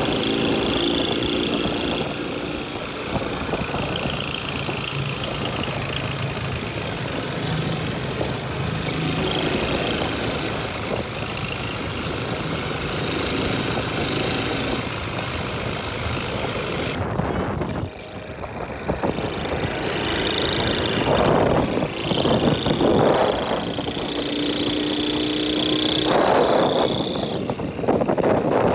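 Motorcycle-and-sidecar engine running while riding along the road, with wind rushing over the microphone.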